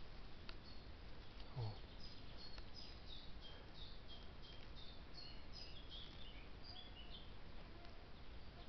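Faint bird calls: a run of short, high chirps repeating for several seconds from about two seconds in, over quiet woodland background.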